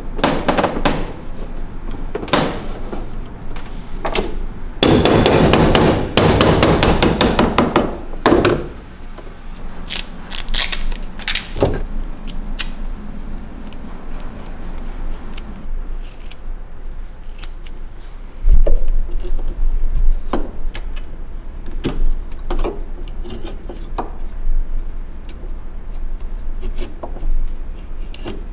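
Hand-work sounds from wrapping a sword hilt with flat cord: irregular clicks and knocks, with a few seconds of dense scraping about five seconds in. A heavy low thump comes about two-thirds of the way through.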